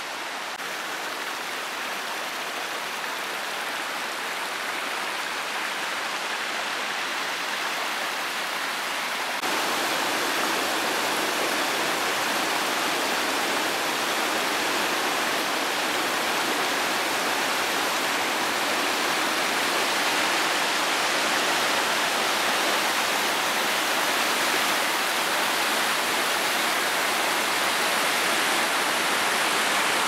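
River water rushing steadily down a cascade of the Köprü River, growing suddenly louder about nine seconds in.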